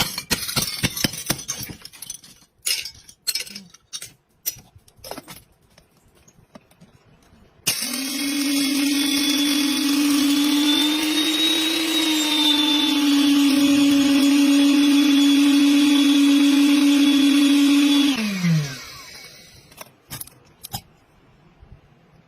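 A small electric kitchen appliance motor starts abruptly, runs with a steady hum for about ten seconds, then winds down with a falling pitch. Before it, a run of irregular clicks and knocks is heard.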